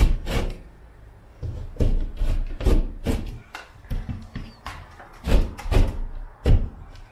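Utility knife cutting through a drywall ceiling by hand: about a dozen irregular sharp scraping strokes with dull knocks as the blade is forced along the cut line, finishing a cut that the drywall saw, set too shallow, did not take through.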